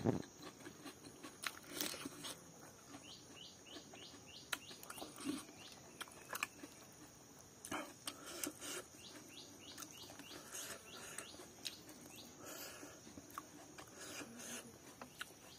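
Close eating sounds of chewing fish and rice, with scattered soft clicks and smacks. A bird chirps in the background, in quick runs of short chirps at two points.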